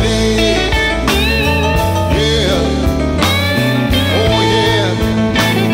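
Background song with guitar, bass and drums.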